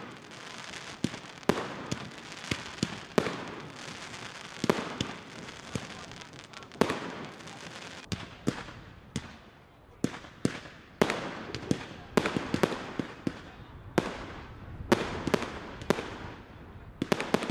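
Professional fireworks display: a rapid, irregular barrage of bangs from shells and cakes bursting, about two a second, some louder than others, over a continuous crackling wash.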